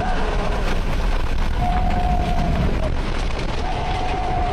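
Tornado winds roaring around a car, with rain and debris pelting the body and windshield in a dense patter of small hits. A thin, high, steady tone sounds over it twice, from about a third of the way in and again near the end.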